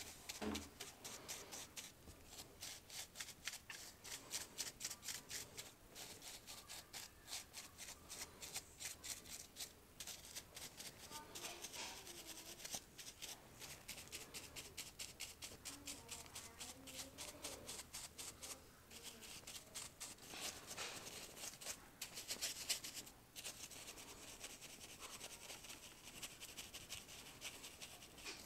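Small brush scrubbing dust off the wire windings of an old electric motor's stator in quick repeated strokes, several a second.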